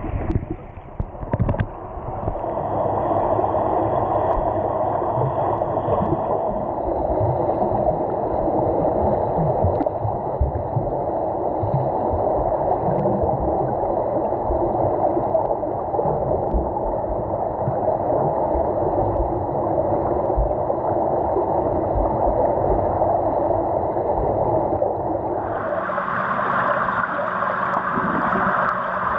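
Muffled, steady rushing and gurgling of pool water heard from underwater, churned by a group of swimmers kicking and stroking overhead, with irregular low knocks. About 25 seconds in, the water noise turns brighter and hissier.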